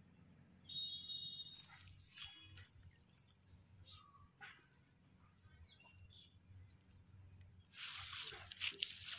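Close crackling and rustling, as of something being handled or crumbled, starts near the end and is the loudest sound. Earlier there is a short high whistle-like tone about a second in and a few scattered light clicks.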